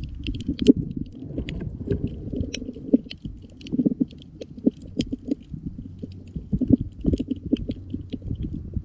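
Underwater reef soundscape: a dense, irregular crackle of sharp snaps from snapping shrimp over low rumbling and grunts from fish.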